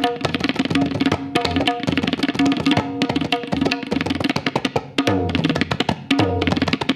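Tabla played in a fast, dense run of strokes: the treble drum rings at one steady tuned pitch while the bass drum adds low notes every so often.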